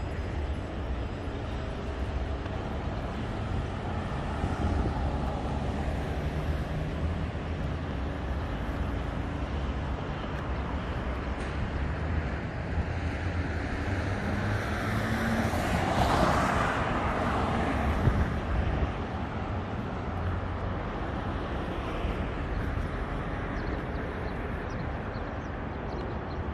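City street traffic: engines running in a steady rumble, with one vehicle passing close by a little past the middle, swelling and fading over a few seconds.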